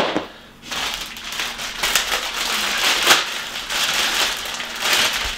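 Plastic packaging crinkling and rustling in the hands, with a single sharp click at the start.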